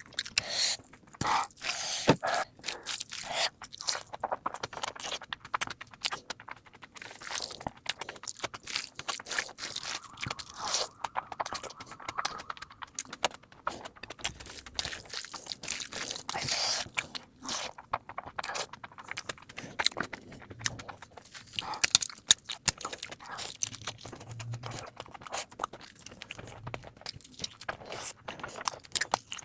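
Close-miked eating sounds sped up to double speed: a dense run of quick crunching, chewing and biting.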